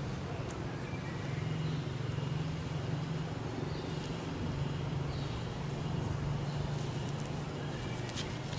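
A steady low engine hum, with faint, short high chirps over it.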